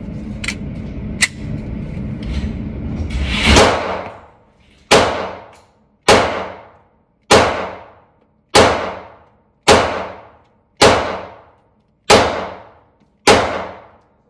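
FMK 9C1 Gen 2 9mm pistol fired in a steady string of nine shots, about one every 1.2 seconds, each ringing off in the indoor range. The gun cycles cheap LAX ammunition without a stoppage. Before the first shot there are a few seconds of handling noise with two sharp clicks.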